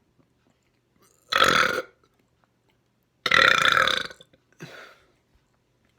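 A person burping loudly twice, each burp under a second long and about two seconds apart, then a short, much quieter sound, bringing up trapped air.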